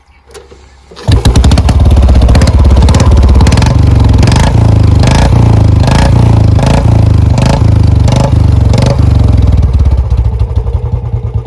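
Royal Enfield Bullet single-cylinder engine with its stock bend pipe and a Chota Punjab aftermarket silencer, starting up about a second in and being blipped repeatedly, with about ten sharp cracks from the exhaust roughly three-quarters of a second apart. Near the end it settles into a steady thumping idle.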